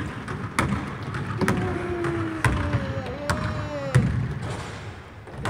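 Basketball dribbled on a gym floor: about five bounces roughly a second apart. Through the middle runs a long sliding tone that falls in pitch.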